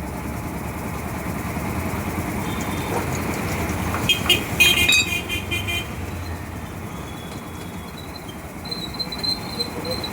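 Road traffic running steadily, with a horn sounding in a short burst about four seconds in.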